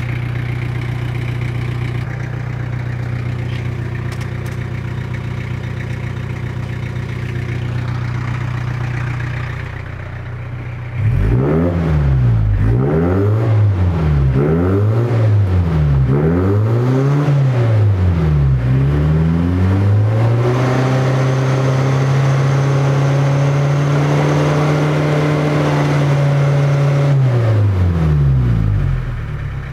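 Iveco Daily 35-8 van's diesel engine at its new custom-built exhaust, idling steadily, then blipped up and down several times from about eleven seconds in, then held at raised revs for several seconds before dropping back to idle near the end. The exhaust is really loud.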